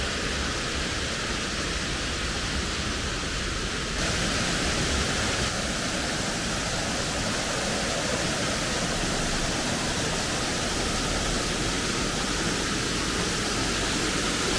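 Steady rush of falling water from a stream and small waterfall, stepping up a little in level about four seconds in.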